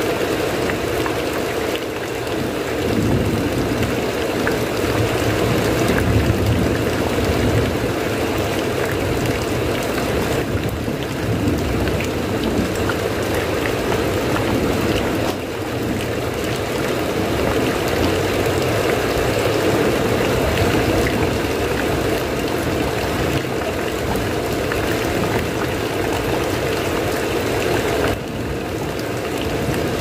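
Steady rain falling on a house roof and its gutter, a dense, even patter that never lets up.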